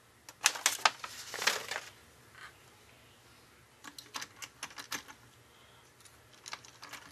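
Hands handling a paper instruction sheet and the small plastic parts of an HO-scale model locomotive on a workbench. A cluster of sharp clicks and a short paper rustle comes about half a second in, more light clicks and taps about four seconds in, and a few more near the end.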